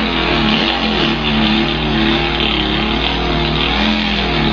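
A man imitating a Volkswagen engine idling with his voice: a steady buzzing hum whose pitch wavers a little, with a breathy hiss on top.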